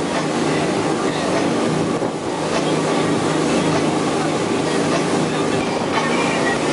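Motorboat running at speed: a steady engine drone under the continuous rush of churning water and spray along the hull.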